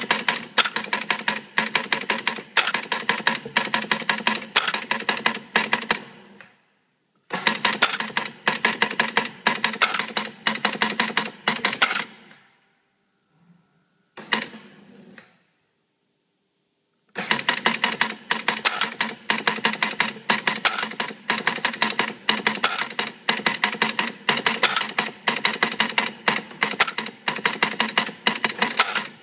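Electromechanical pinball machine's relays and switches clattering in a rapid, continuous run of clicks, with louder clacks about three times a second. It stops briefly about six seconds in, then again for several seconds in the middle, and starts up again each time.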